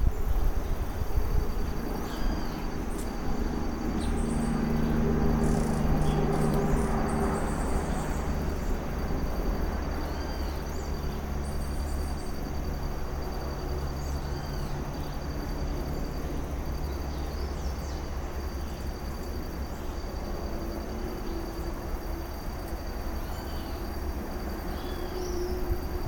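A cricket trilling steadily on one high note, with short bird chirps now and then over it. Under both runs a low rumble with a faint droning hum, stronger a few seconds in and again near the end.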